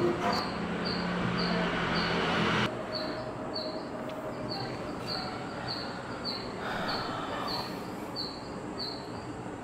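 Chalk in a large blackboard compass scraping along the chalkboard as an arc is drawn: a long scrape that stops abruptly about two and a half seconds in, then a shorter scrape later on. A faint high chirp repeats about twice a second behind it.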